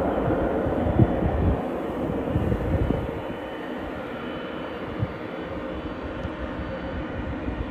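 Boeing 767 airliner's jet engines running, heard from a distance as a steady rumble, with wind buffeting the microphone. The sound drops in level about three seconds in.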